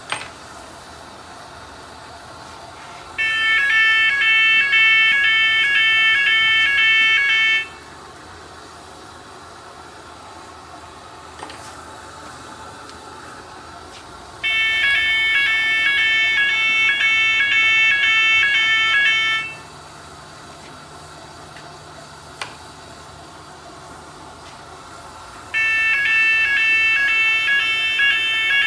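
Electronic alarm siren of a conveyor metal detector sounding three times, each a loud, rapidly pulsing electronic tone lasting about five seconds, the signal that a metal contaminant has been detected. Between the alarms there is a steady low background hum.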